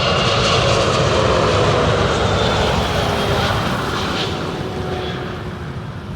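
Boeing 777-300ER's GE90 jet engines as the airliner passes on its landing approach: a loud, steady rushing noise with whining tones that slide down in pitch, fading over the last two seconds.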